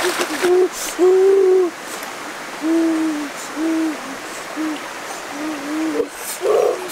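A series of short, low, steady hoots, about eight in all, the longest about a second in, over the hiss of a stream.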